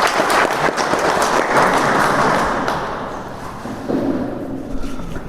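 Audience clapping, a dense patter of hand claps that dies away about three seconds in.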